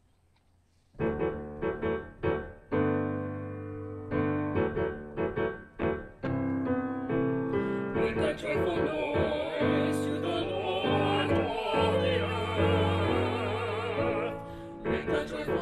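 Piano introduction starting about a second in, then a small group of four singers, sung with vibrato, joining the piano about eight seconds in for a hymn-like choral song.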